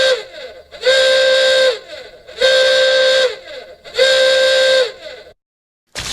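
Steam train whistle sound effect: long toots repeated about every one and a half seconds, each dipping in pitch as it stops.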